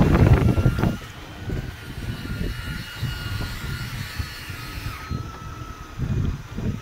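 Wind rumbling on the microphone over a boat engine running at sea, with a faint steady high whine. The rumble is loudest in the first second, then drops back.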